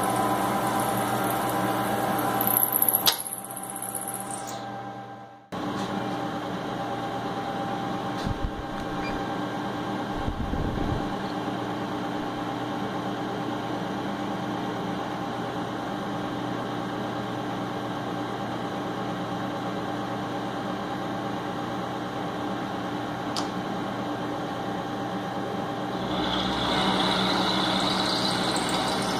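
Milling machine running steadily, its motor humming with several steady tones while an end mill cuts a metal block. There is a higher hiss near the start, the sound drops away briefly about five seconds in, and it grows louder again near the end.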